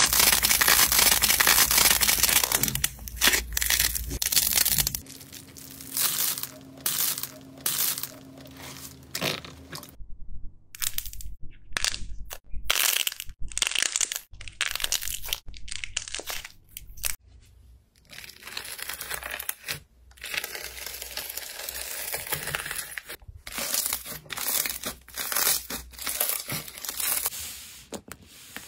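Hands squeezing, kneading and pressing slime, giving crackling, crunching and tearing sounds in irregular bursts. The first five seconds hold a dense, loud crackle.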